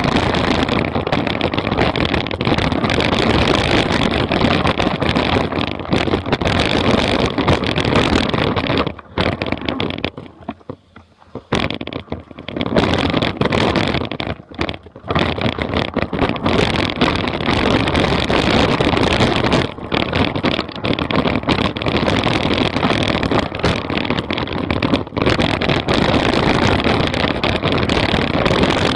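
Wind buffeting the microphone and the rattling and tyre noise of a mountain bike riding fast over a rough forest trail, a dense rushing noise full of small knocks. It drops away for a couple of seconds about ten seconds in, then picks up again.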